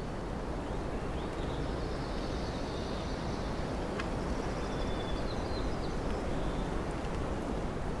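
Boreal forest ambience: a steady low rushing background with faint, high bird song from about one and a half to six seconds in, and one faint tick near the middle.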